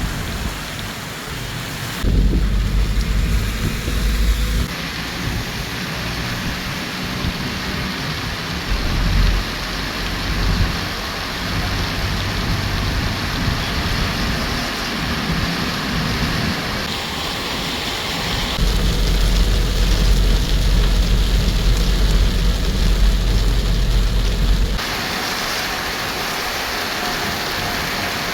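Heavy rain pouring in a thunderstorm, a steady loud hiss, with deep rumbling that swells twice, about two seconds in and again past the middle, then drops away.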